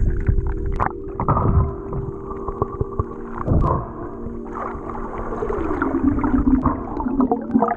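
Water sloshing and gurgling with irregular splashes, over sustained tones of background music. Near the end one tone slides downward.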